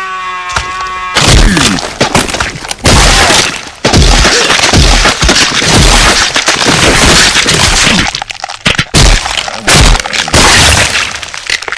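A loud, distorted run of cracking and crashing sound effects with heavy thumps, in bursts separated by short gaps, opening with a brief pitched sound in the first second.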